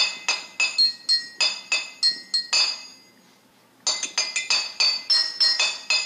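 Intro music of quick, glassy, bell-like struck notes, about four a second. It breaks off for about a second near the middle and then starts again.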